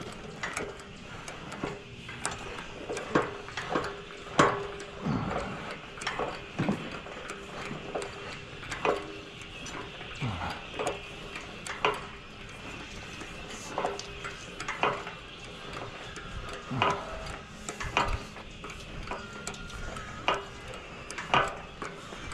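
Irregular metallic clicks and knocks, one or two a second, with a few short falling creaks, from handling and adjusting the height mechanism of an adjustable in-ground basketball hoop while the backboard is set toward 10 feet.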